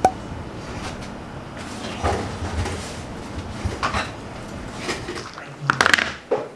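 A sharp click, then scattered light knocks and clatters of household objects being handled and set down, loudest in a quick cluster near the end.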